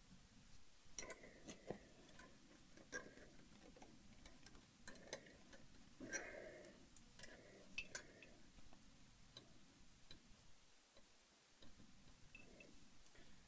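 Faint, irregular metallic clicks and taps of a socket and Allen key working on a motorcycle brake caliper pin, some with a brief ring. The clicks come thick in the first half and grow sparse later, as the very tight pin refuses to turn.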